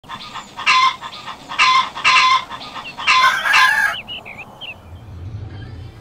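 Free-range chickens calling: several loud, harsh calls in the first four seconds, the last one the longest, followed by a few softer chirps.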